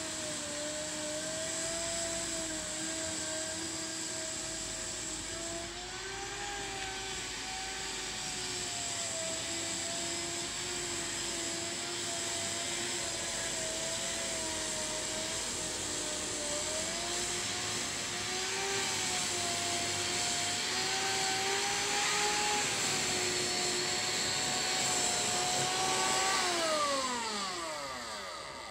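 Worx electric lawn dethatcher running, its motor giving a steady whine over a whirring hiss as it is pushed across the lawn, the pitch wavering slightly. Near the end it is switched off and the whine falls steeply in pitch as the motor spins down.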